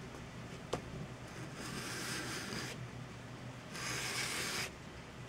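Small model-aircraft nose section rubbed on a sheet of sandpaper held flat: two slow sanding strokes, the second about four seconds in. The mating face is being sanded down on one side to line the nose up with the rest of the fuselage.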